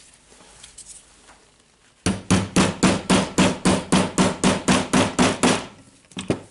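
Hammer striking a long metal socket to drive a ball bearing onto the drill's anvil shaft: about fifteen quick, even blows at about four a second, starting about two seconds in and stopping after about three and a half seconds.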